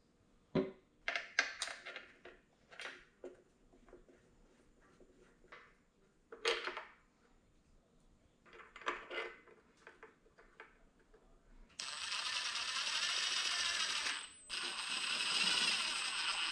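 Metal bolts clinking and tapping as they are handled and set into the front engine cover, then a cordless power driver running twice with a steady high whine, about two and a half seconds and then two seconds, spinning the cover bolts down.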